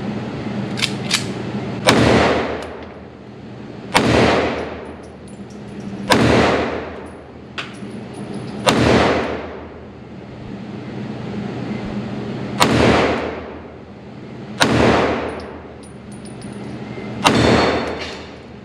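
Walther CCP M2 compact pistol in .380 ACP being fired seven times at a slow, even pace, roughly two seconds apart. Each shot is followed by a long reverberant decay. A few fainter sharp cracks fall between them.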